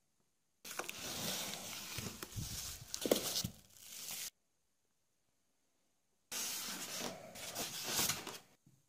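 Packaging being handled: plastic wrap rustling and crinkling and a polystyrene foam insert rubbing against the cardboard box. The sound comes in two stretches of a few seconds each, both starting and stopping abruptly.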